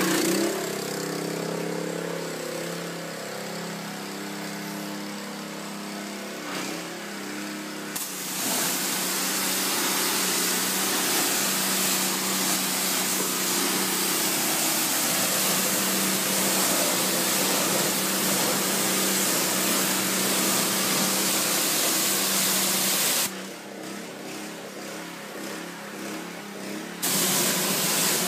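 Small gas engine of a pressure washer running steadily. From about eight seconds in, the water jet from the spray wand hisses loudly over it; the hiss stops for a few seconds near the end and then resumes.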